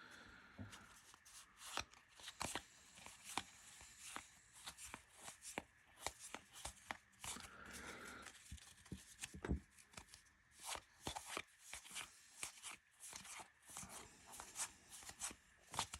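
Baseball trading cards being handled and flipped through one by one: faint, irregular soft clicks and slaps of card on card.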